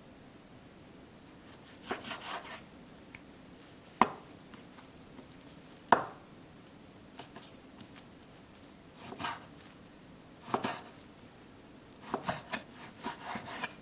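A knife slicing raw pork belly on a wooden cutting board: short groups of sawing cuts scattered through, with two sharp knocks on the board about four and six seconds in that are the loudest sounds.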